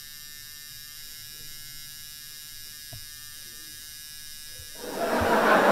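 A steady electric buzz with many even overtones. Near the end, much louder crowd chatter and laughter cuts in.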